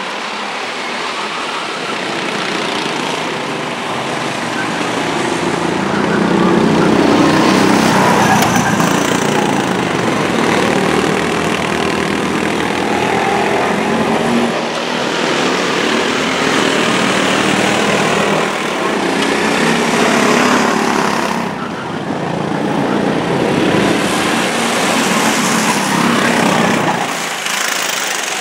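Several go-kart engines running on the track. Their engine notes rise and fall as the karts pass by and accelerate out of the corners.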